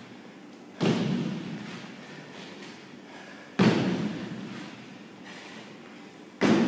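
Box jumps: feet landing with a heavy thud on a hollow wooden plyometric box, three times about three seconds apart, each thud dying away slowly in the hall.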